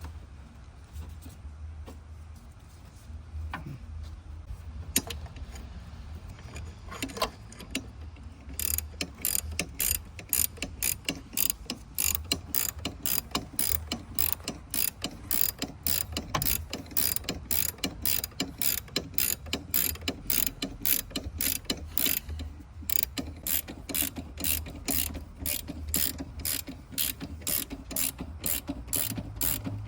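Hand ratchet wrench clicking in steady strokes, about two to three clicks a second, starting about nine seconds in as a bolt is run in on the engine mount. Before that, a few scattered light clicks and knocks of tool handling.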